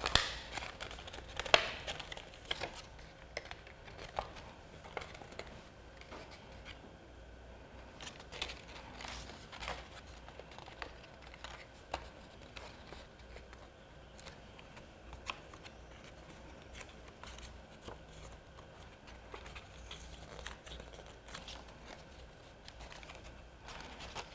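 Paper rustling and crinkling, with light clicks, as the printed paper pieces of a papercraft macaw are folded and their tabs fitted together by hand. The handling is busiest in the first couple of seconds, then goes on as softer scattered crinkles and ticks.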